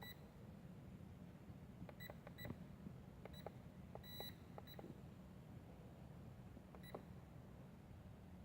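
Several short, high electronic beeps from a toy drone's remote control, spaced irregularly, with faint clicks among them, over near silence.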